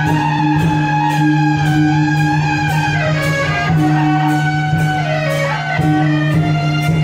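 Music: a melody that slides between notes over a steady low held drone, with a regular beat about twice a second.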